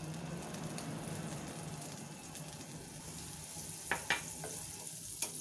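Butter melting and sizzling with a steady hiss in a nonstick wok. A few sharp clicks in the last second and a half, from a wooden spatula knocking against the pan.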